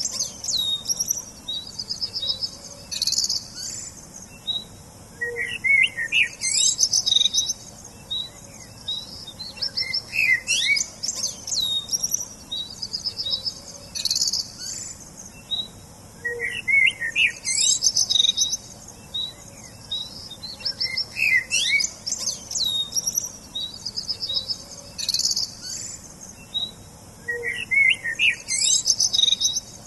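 Songbirds chirping and singing: short high-pitched phrases of rapid trills and quick sweeping notes, repeated every few seconds over a faint steady hiss.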